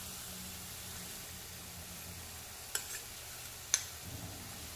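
Onion-tomato masala sizzling steadily in a stainless steel frying pan, with two sharp taps about a second apart as an egg is cracked into the pan.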